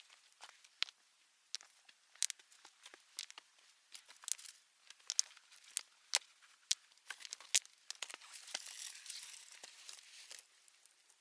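Dry leaves and twigs crackling and rustling as they are handled: scattered sharp snaps and clicks, then a couple of seconds of dense rustling about eight seconds in.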